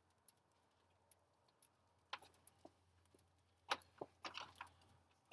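Faint, scattered light clicks and clinks of small objects being handled, a few louder ones past the middle, over a faint steady low hum.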